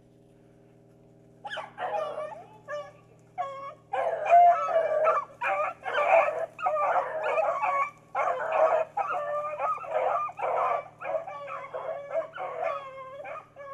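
A pack of beagles baying, several dogs' voices overlapping. The first calls start about a second and a half in, and the baying is nearly continuous from about four seconds.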